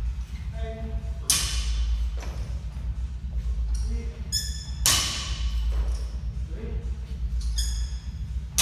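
Loaded barbell with plates coming down onto the gym floor three times, about three and a half seconds apart, each a sharp thud with a metallic ring, with lighter metal clinks from the plates between them.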